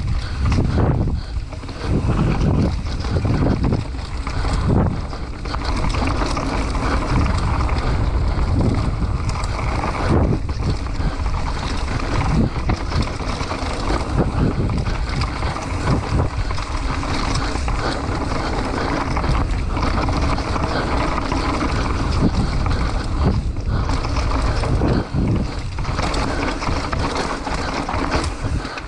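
Mountain bike riding down a dirt enduro trail: wind rushing over the camera's microphone, with the tyres rolling over rough ground and the bike knocking and rattling over bumps at irregular intervals.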